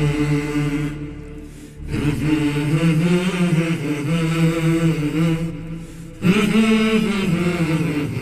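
Background vocal chanting in the style of a nasheed, with long held, slowly gliding notes and no instruments heard. Phrases fade and restart twice, about two seconds in and again about six seconds in.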